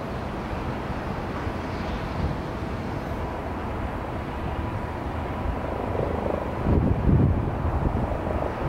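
Jet airliner engines running: a steady rumble with a thin steady whine, swelling louder for a moment about six to seven seconds in.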